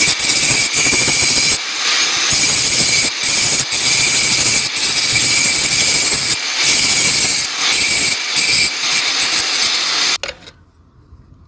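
Electric grinder working leaf-spring steel: a loud, continuous grinding with a steady whine and brief dips in pressure. It cuts off suddenly about ten seconds in.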